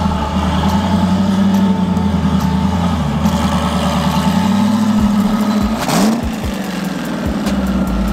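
Car engine running steadily at a constant pitch. About six seconds in there is a short sharp crack with a quick dip and rise in engine pitch, then a few low thumps.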